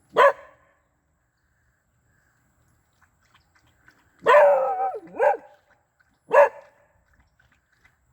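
Dog barking: one sharp bark at the start, then about four seconds in a longer, drawn-out bark followed by two short ones.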